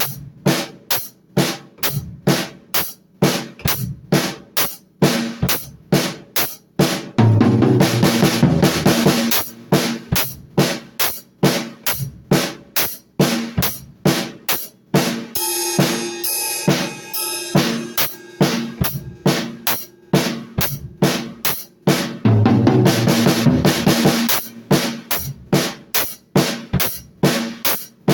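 Drum kit played in a steady beat of bass drum and snare with cymbals, breaking into busier, denser fills about seven seconds in and again near the end.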